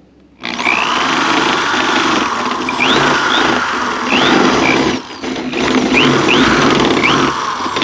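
Drill spinning a coring bit through wet cement backer board, starting about half a second in, the bit grinding with a high motor whine and short rising squeaks. The drill eases off briefly about five seconds in and picks up again.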